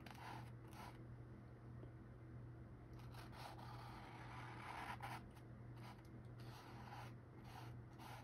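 Paintbrush scratching faintly across a canvas: a few short strokes, then a longer stroke lasting about two seconds from around three seconds in, over a steady low hum.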